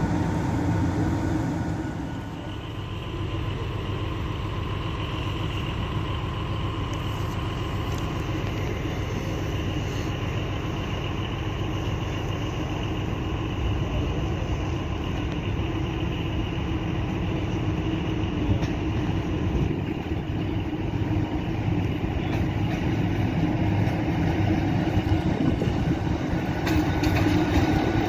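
MÁV Class V43 electric locomotives and passenger coaches rolling slowly through the station: a steady hum of the locomotive's motors and blowers over wheel-on-rail noise. It grows louder near the end as a locomotive passes close by.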